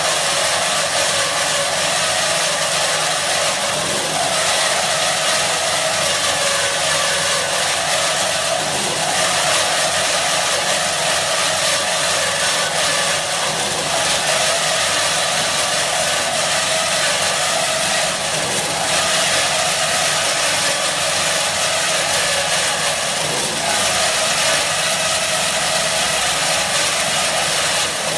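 IMET KS-1202 NC double-mitre band saw machine running: a steady, unbroken whirring noise.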